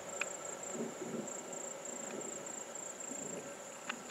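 Insects chirping in a high, evenly pulsing trill, over a faint low rumble, with a couple of faint clicks.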